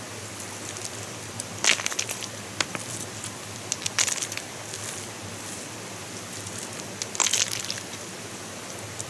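Bursts of crackling, crunching clicks, three times, over a steady hiss.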